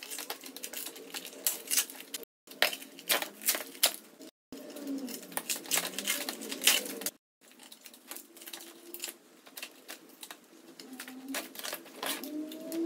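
Utility knife blade and plastic wedge scraping and prying at the edges of a carbon-fibre part on its mold: a quick, uneven run of sharp scratchy clicks, broken three times by brief dropouts to silence.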